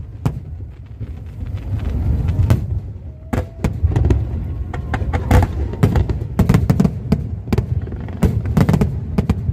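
Aerial fireworks going off: a rapid run of sharp bangs and crackles over a low rumble, thickening after the first couple of seconds.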